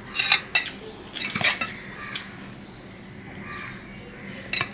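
Metal serving spoon clinking and scraping against a stainless steel bowl as rice is scooped: a cluster of sharp clinks and scrapes in the first two seconds, then another pair near the end.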